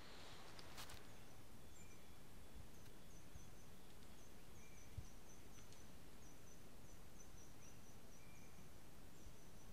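Quiet forest ambience: a steady hiss with faint, short high chirps repeating throughout, and a single soft thump about five seconds in.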